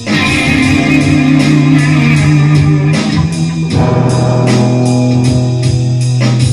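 Rock band playing loudly: held guitar chords over bass and drums, the whole band coming in together at the start.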